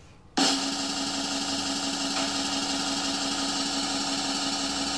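A power tool's electric motor running steadily at one constant speed, starting abruptly about half a second in.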